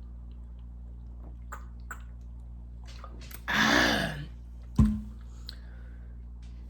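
Mouth and handling sounds during a food-and-drink sitting: a few faint clicks, then a short voiced exhale about three and a half seconds in, and a sharp knock about a second later, over a steady low hum.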